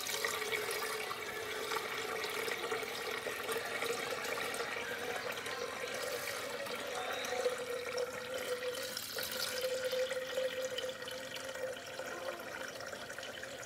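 Kitchen tap running into a pitcher held in a stainless steel sink, filling it with water. A faint tone in the splashing slowly rises in pitch as the pitcher fills.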